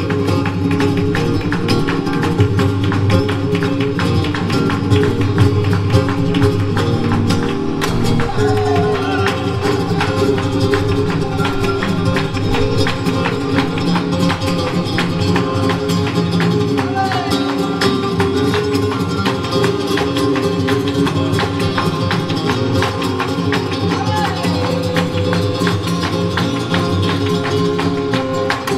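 Two flamenco guitars playing the instrumental opening of a tangos, with hand clapping (palmas) keeping the beat as a steady run of sharp claps.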